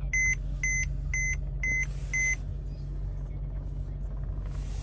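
A 2013 Mercedes-Benz C350's warning chime beeps repeatedly, about two beeps a second, and stops about two and a half seconds in. Under it runs the steady low hum of the idling engine.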